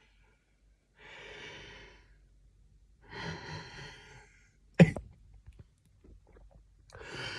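A man's heavy breaths, three of about a second each, with one short, sharp cough about five seconds in. He is trying to cough up phlegm from a congested chest.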